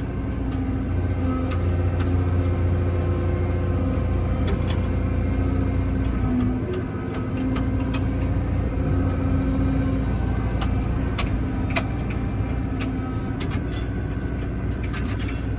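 Excavator's diesel engine running steadily, heard from inside the cab as it starts digging, with a low hum whose tones shift slightly as it works and scattered sharp clicks and knocks.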